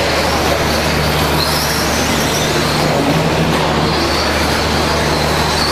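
Radio-controlled stock trucks racing on an indoor dirt track. There is a steady din of high motor whine that rises and falls, and tyre noise, over a low steady hum.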